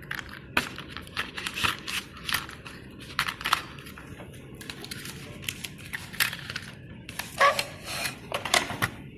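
Hands unfolding the arms of a small plastic foldable quadcopter and handling it: irregular clicks, taps and rustling, busiest about three-quarters of the way through.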